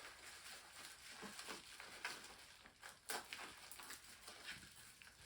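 Faint handling noises of unboxing packaging: light rustling and small clicks, with one sharper tap about three seconds in.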